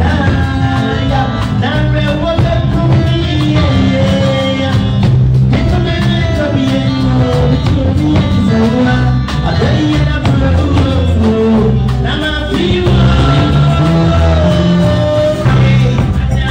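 Live band playing upbeat dance music on drum kit and keyboard, with a singer's voice over it.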